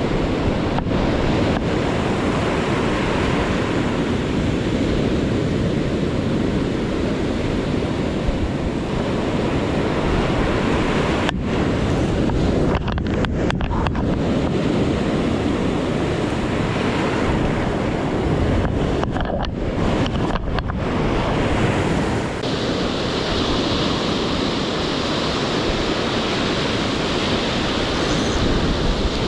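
Steady rush of heavy surf breaking and washing on the shore under a winter storm swell, with wind buffeting the microphone.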